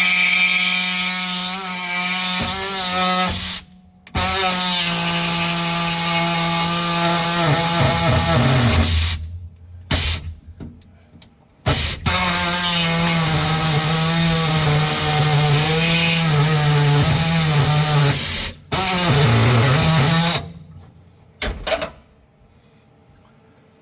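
A handheld electric power tool cutting metal in several runs, its motor whine starting and stopping between cuts. The pitch sags under load about eight seconds in and again near twenty seconds.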